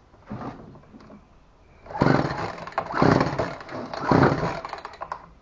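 Poulan Pro PR4218 two-stroke chainsaw being pull-started: a short tug, then three hard pulls on the recoil starter about a second apart, the engine turning over without firing.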